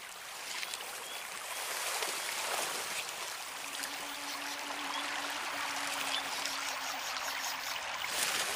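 Steady rush of flowing stream water, with a faint low hum joining it about three and a half seconds in.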